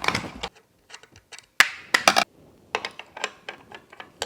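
Irregular sharp clicks and taps of small bike parts being handled and fitted by hand during headlight installation, the loudest cluster about a second and a half to two seconds in.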